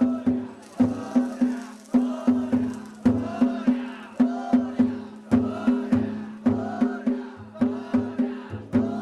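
Danjiri festival music: the drums and gongs carried on the cart, beaten in a fast, steady repeating rhythm, each stroke ringing briefly.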